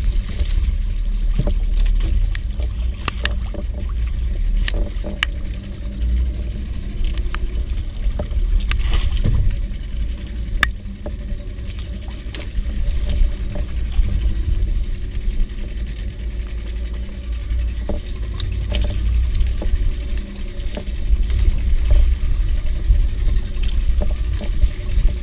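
Steady low rumble of wind and water around a small boat, with scattered sharp ticks.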